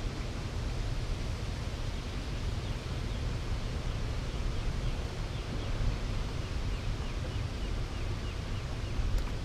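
Steady rushing noise of churning river water from a dam's outflow, with a deep rumble of wind on the microphone.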